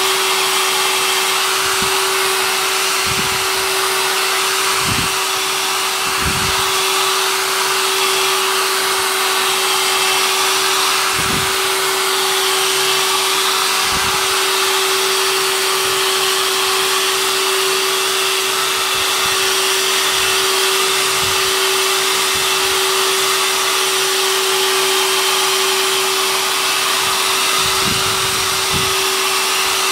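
Hair dryer running steadily with a constant motor whine, blowing on the wetted back of a slack canvas to shrink it taut. A few brief low thumps come and go under it.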